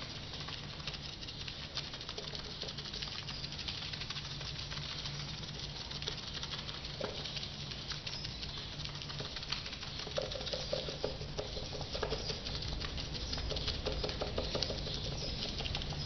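Two paint brushes dabbing resin into wet fiberglass mat, a quick, soft patter of many small taps as the mat is wetted out. A steady low hum sits beneath it.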